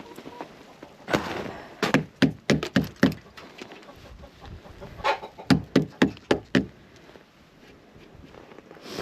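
Two quick runs of sharp knocks, each of about half a dozen strikes: one around two seconds in, the other around five seconds in.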